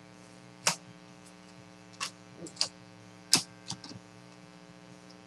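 Trading cards being handled and flipped through: about six short, sharp flicks and slaps spread unevenly, over a steady electrical mains hum.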